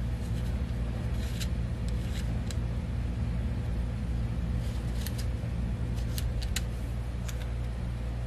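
Small sharp clicks and ticks of a threaded metal battery cap being screwed down on an SXK SupBox Pro box mod, scattered through and bunched near the end. Under them a steady low hum is the loudest sound.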